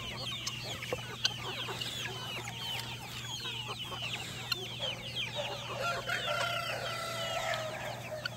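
A large flock of chickens clucking and chirping over one another without pause, many short high calls overlapping. About six seconds in, a rooster crows, one long drawn-out call.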